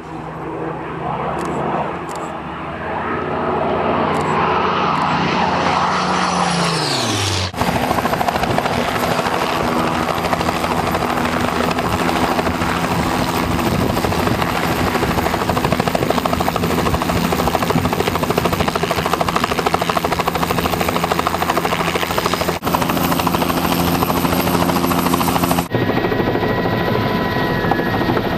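Light turbine helicopter arriving: its rotor and engine note falls in pitch as it comes close, then a steady rotor beat with a very high turbine whine as it hovers low over the ground. Near the end the sound cuts to inside the cabin, where the rotor noise is duller and steady tones sound.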